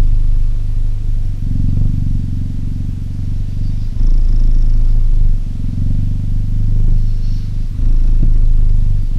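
Cheetah purring loudly and close up: a continuous low rumble that swells and eases every couple of seconds.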